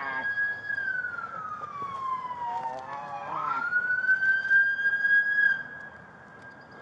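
Police car siren wailing: one slow rising and falling tone that holds high, slides down over about two seconds, climbs back up and holds again, then fades near the end.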